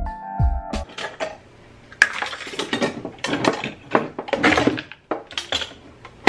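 Metal kitchen utensils and knives clattering and clinking in a wooden drawer as they are rummaged through, in quick irregular bursts. Background music plays for about the first second.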